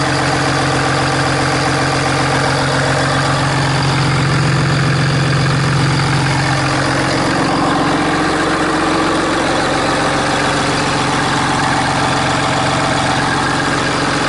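Ram 2500's Cummins 6.7-litre turbo-diesel straight-six idling steadily, heard from the open engine bay.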